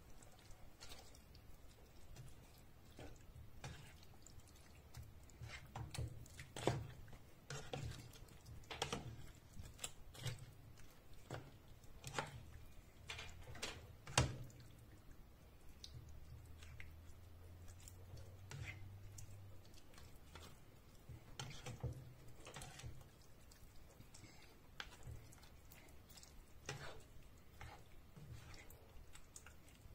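Spatula stirring chicken and vegetables in a sauce-filled frying pan: irregular soft clicks, taps and scrapes of the utensil against the pan, the sharpest about fourteen seconds in.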